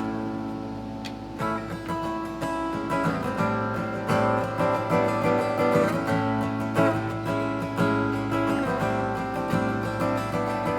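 Acoustic guitar strumming chords, the instrumental intro of a song before the vocals come in.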